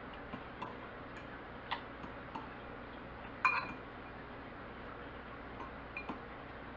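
Metal fork clinking against a glass bowl as pickle slices are turned in beaten egg: a few light, scattered ticks, with one sharper clink about three and a half seconds in.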